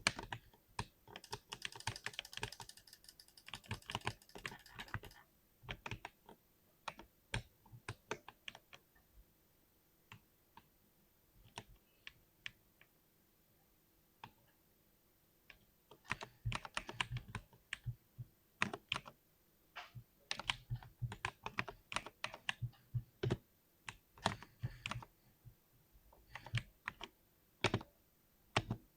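Typing on a mechanical keyboard with Cherry MX switches: a quick run of keystrokes at first, then scattered single key presses with a short lull, then fast typing again for the second half.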